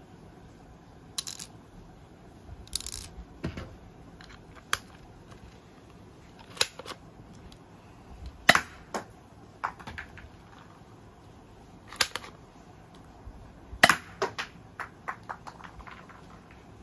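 Manual spring-powered toy BB gun being handled and worked: irregular sharp plastic clicks and snaps, some single and some in quick clusters, with three louder cracks spread through the middle and later part.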